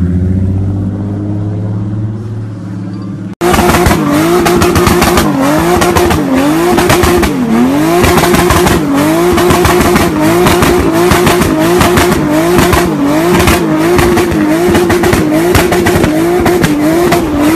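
Toyota Supra MK4's straight-six engine revving as the car pulls away, then abruptly a louder one held at high revs while its tyres spin in a smoky slide. The high engine note dips and comes back about once a second as the throttle is worked.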